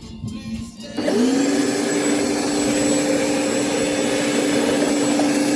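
Bosch ARM 3200 1200 W electric rotary lawnmower switched on about a second in: its motor spins up quickly to a steady whine with the rush of the spinning blade.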